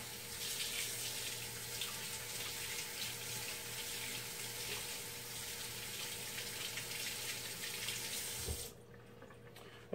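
Kitchen tap running steadily into the sink, shut off suddenly near the end.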